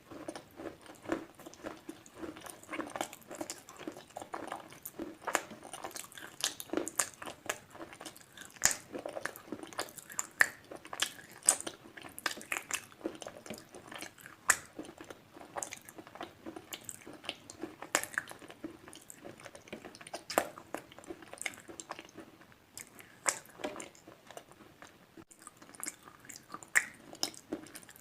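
Slate pencils being bitten and chewed close up, a steady run of dense, irregular crisp crunches.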